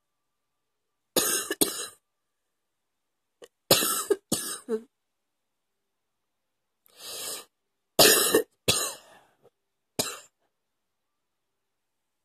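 A woman coughing in short groups of two or three harsh coughs, with silent pauses between the groups, and one softer, breathier sound a little past the middle.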